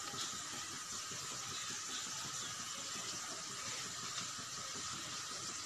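A steady hiss with a faint high whine, typical of a lit gas stove burner under the kadai. The noodles sliding from the steel colander add only a couple of faint taps.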